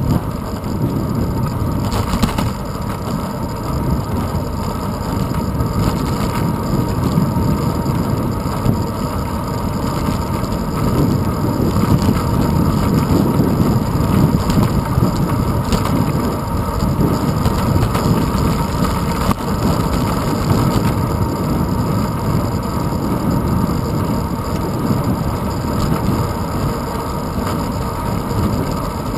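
Wind buffeting and road vibration on a handlebar-mounted GoPro action camera as the bicycle rolls along a paved road: a steady low rumble that shifts in strength, a little louder around the middle.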